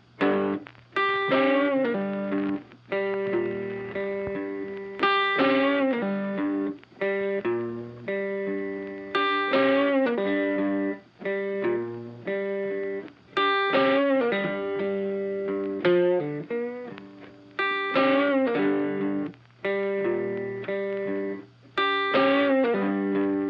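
Background music: a distorted electric guitar playing chords with a steady rhythm.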